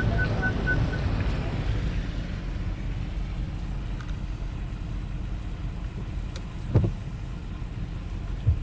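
Steady low rumble of a car's engine and tyres heard from inside the cabin while driving in rain. A quick run of about five high beeps sounds in the first second, and a couple of dull low thumps come near the end.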